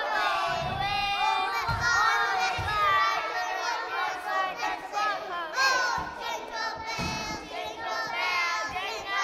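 A group of young children's voices calling out and chattering over one another.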